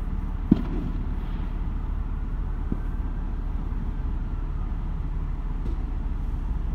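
Steady low rumble of city traffic, broken by a single sharp bang about half a second in and a fainter knock near three seconds: distant New Year fireworks going off.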